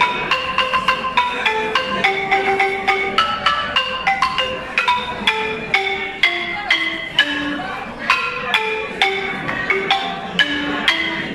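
Balafon, the West African wooden xylophone with gourd resonators, played with two mallets: a quick, steady stream of short struck notes in a repeating melodic phrase.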